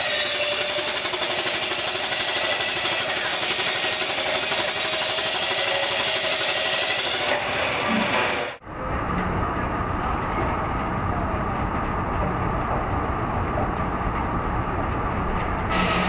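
Miniature sawmill's circular saw, driven by a scale steam engine, ripping steadily through a small log. About halfway through, the sound cuts abruptly to a duller, lower machinery noise with a steady hum.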